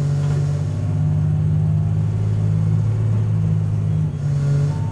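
Diesel engine of a Tosa Kuroshio Railway 9640-series railcar under power as the train gathers speed out of the station, heard from inside the car. A steady low drone shifts in pitch about a second in and again near four seconds.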